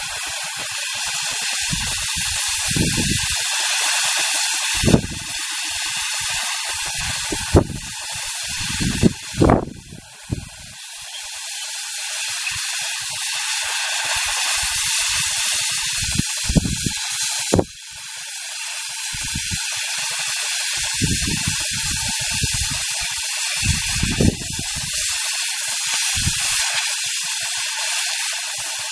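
Oxy-acetylene cutting torch hissing steadily as it cuts through a steel bar, with irregular low thumps. The hiss drops briefly twice, about ten and eighteen seconds in, and builds back up.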